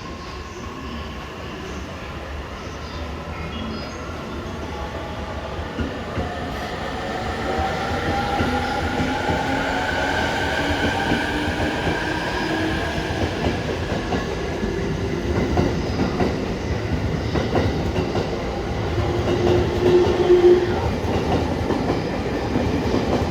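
JR East E231-1000 series electric train pulling away from a station, its VVVF inverter and traction motors whining with a pitch that climbs as it speeds up. Wheels clatter over the rail joints, growing louder as the train gathers speed.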